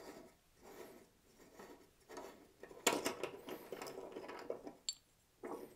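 Faint clicks, rattles and scraping of a wing nut and washers being unscrewed and pulled off a welder's wire-spool hub, with one sharp click near the end.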